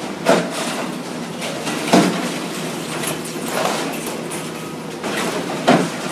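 Komatsu excavator running steadily as its claw attachment tears into a building's gutted wall, with about four sharp crashes and scrapes of breaking debris; the loudest come about two seconds in and near the end.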